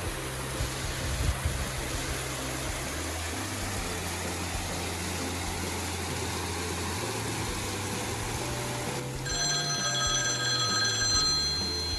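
Steady rush of water from a creek cascade and waterfall under background music with sustained low notes; about nine seconds in, several high bell-like tones ring together for a couple of seconds.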